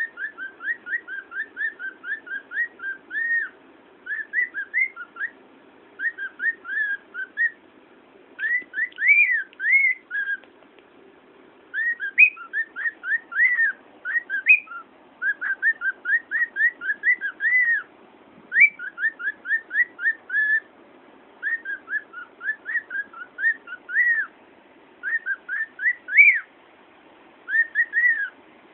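Cockatiel singing: a long string of short, whistled notes that rise and fall, delivered in quick phrases with brief pauses between them.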